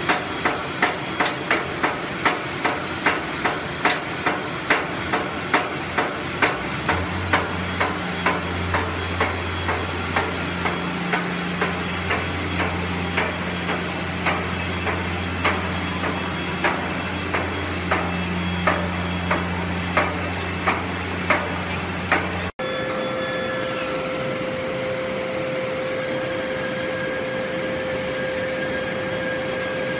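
Power forging hammer striking in a steady rhythm, about one and a half blows a second, with a low machine hum joining about seven seconds in. About 22 seconds in, the hammering cuts off abruptly to steady machinery noise with a constant hum.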